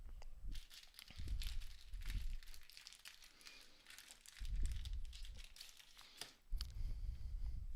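Plastic trading-card pack wrapper crinkling and crackling as it is handled and torn open, with a few dull bumps of handling.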